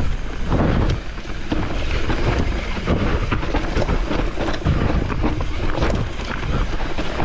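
Mountain bike descending a rough trail: wind on the microphone, with the tyres rolling over dirt and rocks and the bike rattling with many small knocks over the bumps.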